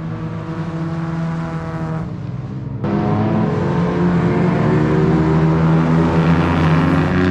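Race car engines running steadily at the rolling start, with a sudden step up in loudness about three seconds in, after which the engine note climbs a little.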